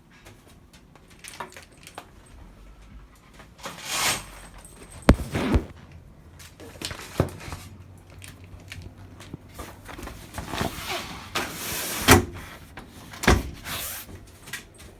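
Household doors and cupboards being opened and shut while someone moves through the rooms: a series of knocks and bumps with rustling and handling noise between them, the loudest knocks about five and twelve seconds in.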